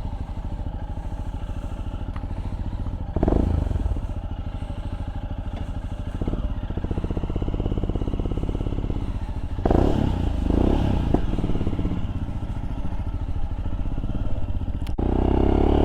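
Royal Enfield Scram 411's single-cylinder engine through a Zard exhaust, running on the move with a dense, even exhaust pulse. It swells briefly twice, and near the end its pitch climbs as it accelerates.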